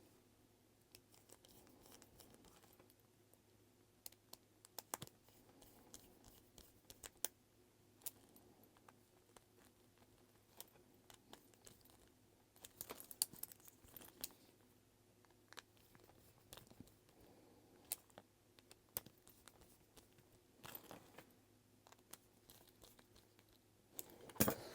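Faint, scattered small clicks and taps from handling a resin G-Shock watch case and small hand tools. A few sharper ticks stand out among them.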